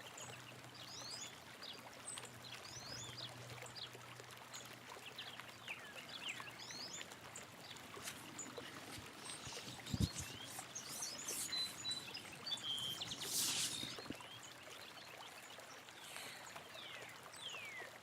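Small birds chirping and calling, many short sliding notes, over a faint steady trickle of water. There is one soft knock about ten seconds in and a brief splash-like hiss a few seconds later.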